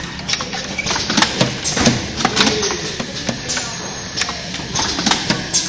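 Automatic cartoning machine running, a busy irregular clatter of sharp clicks and knocks from its moving parts.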